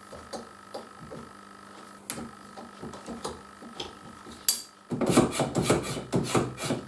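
Circular saw blade being handled on the arbor of a saw-blade sharpening machine: scattered light metal clicks and taps. From about five seconds in comes a faster, louder run of metallic clicks and rattles.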